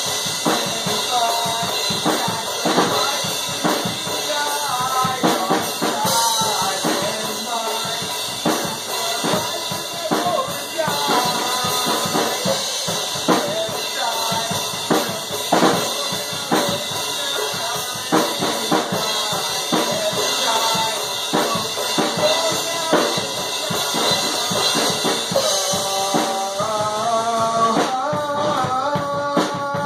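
A band rehearsing: a drum kit played hard with bass drum, snare and cymbals, and a man singing into a handheld microphone over it. A clearer stepped melody comes forward in the last few seconds.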